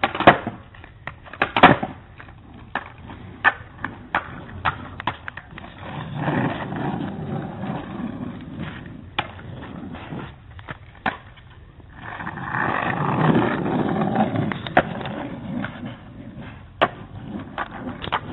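Small hard skate wheels rolling over pavement in two longer stretches, starting about six and twelve seconds in. Among them are many sharp clacks and knocks of boards or scooters hitting the ground as tricks are landed.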